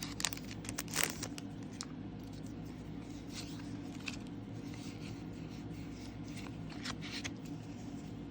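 Foil wrapper of a Pokémon trading card booster pack crinkling while the pack is opened and the cards are handled: scattered short rustles, the sharpest about a second in, over a steady low hum.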